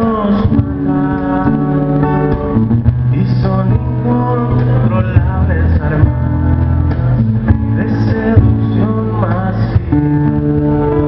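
Acoustic guitar playing with a man singing at intervals, performed live.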